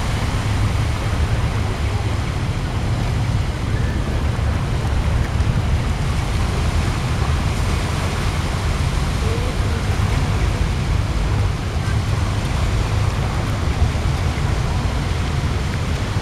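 Wind buffeting a compact camera's built-in microphone: a steady, loud low rumble that flutters constantly, with a hiss of outdoor noise above it.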